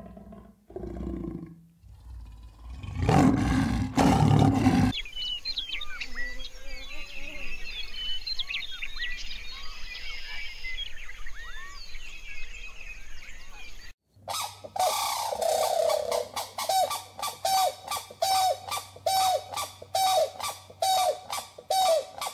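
A large spotted cat growls in a few loud, deep bursts. Then birds chirp faintly in the background, and after that a bird calls over and over, about twice a second.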